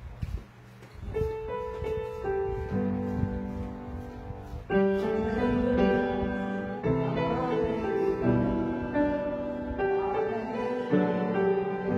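Upright piano playing slow, sustained hymn-like chords. It starts about a second in and grows louder and fuller a few seconds later, changing chord every second or two.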